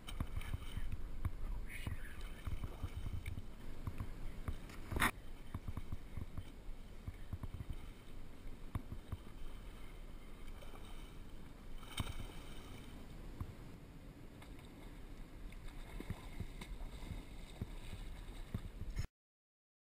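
Low, muffled water and wind noise around a kayak at sea, with two sharp knocks, about five and twelve seconds in. The sound cuts off about a second before the end.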